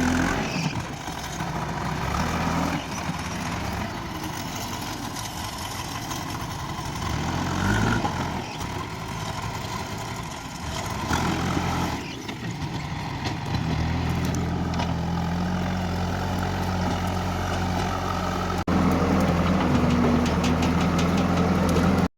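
JCB 3DX backhoe loader's diesel engine running. It turns steady about 13 seconds in, drops out for an instant near 19 seconds, and is louder after that.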